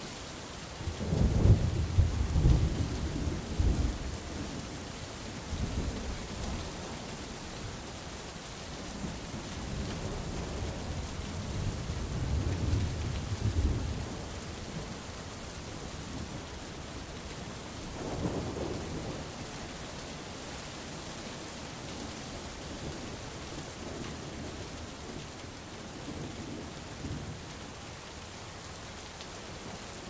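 Steady rain falling on a forest canopy, a continuous hiss. Low rumbles swell over it, loudest about a second in, again around twelve to fourteen seconds and briefly near eighteen seconds.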